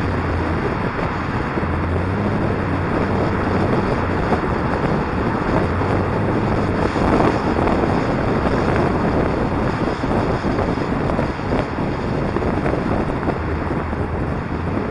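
Wind buffeting the microphone of a camera mounted on the roof of a moving car, over the car's engine hum and road noise as it drives along.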